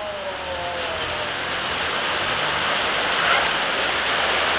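Heavy rain pouring down on the street, a steady rushing hiss, with a vehicle's falling engine tone passing on the wet road in the first second.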